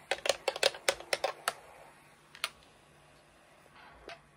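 A stirrer clinking against the inside of a glass jar of fizzy drink: about nine quick clinks in the first second and a half, then a single clink about a second later.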